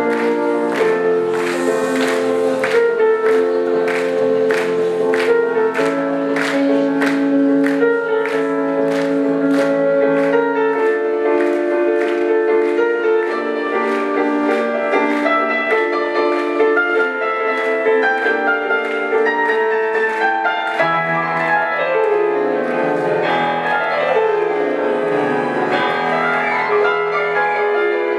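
Live band music led by keyboards: sustained piano and keyboard chords over a pulse of sharp attacks about twice a second. Near the end, sliding tones sweep down and then back up.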